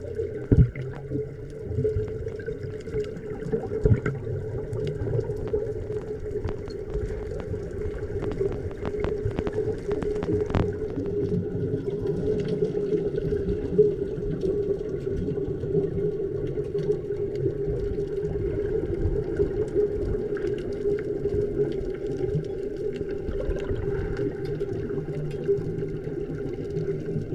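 Underwater ambience heard through the water: a muffled, rumbling wash with a steady low hum and scattered sharp clicks and crackles.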